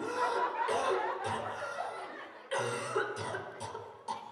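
Bouts of harsh coughing from someone with a bad cold, coming in a run of sudden bursts near the start and again about two and a half seconds in.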